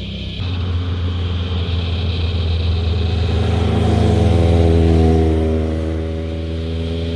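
Motorcycles riding past through a bend. The nearest bike's engine note climbs as it accelerates out of the corner, loudest about five seconds in, then fading as it moves away.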